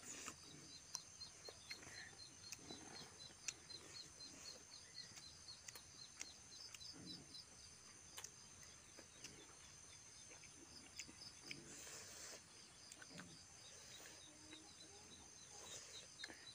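Near silence: faint insect chirping in a fast, even pulse throughout, with soft clicks and smacks of chewing and fingers working food close by.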